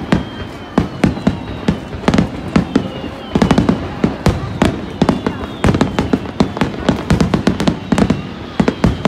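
Festival fireworks display: aerial shells bursting in quick succession, a dense run of sharp cracks and bangs several times a second, with faint high whistles running through.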